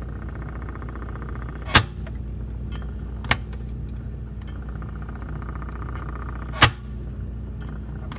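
Whirlpool side-by-side refrigerator knocking: sharp single knocks at uneven intervals, one and a half to three seconds apart, over the fridge's steady running hum.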